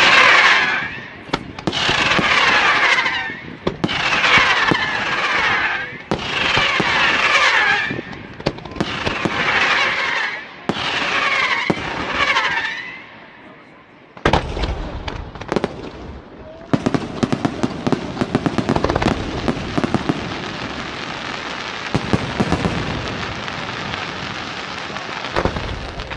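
Fireworks display: for the first dozen seconds, loud salvos about every two seconds, each full of whistles falling in pitch. After a short lull, a dense continuous crackle of many rapid pops and bangs.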